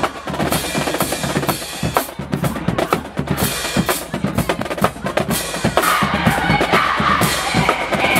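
Music driven by heavy drums and percussion, bass drum and snare hitting in a fast, steady rhythm. The sound grows fuller and brighter about six seconds in.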